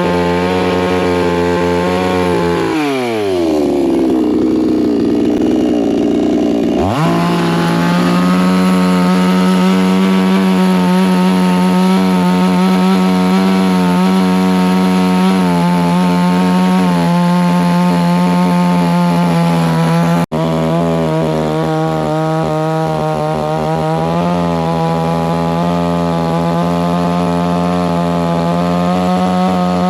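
Two-stroke chainsaw running at high revs. About three seconds in it drops to a low idle, and about seven seconds in it is revved sharply back up and held at full throttle. The sound breaks off for an instant about twenty seconds in.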